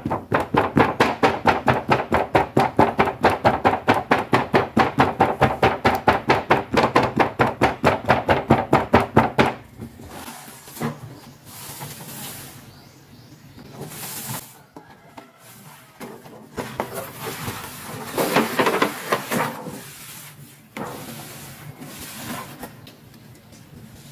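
Fingers tapping rapidly and evenly on a cardboard toy box, about five taps a second, stopping after about nine seconds. Then quieter, irregular rustling and scraping of the box and packaging being handled and opened.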